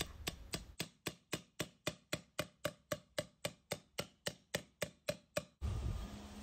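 Hammer blows on the rim of a stainless steel pipe, about four a second, each with a short metallic ring, as the pipe end is hammered over and shrunk to a smaller diameter. The hammering stops about five and a half seconds in.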